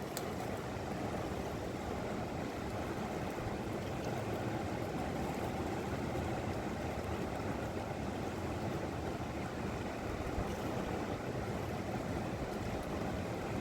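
Steady rush of a mountain river flowing.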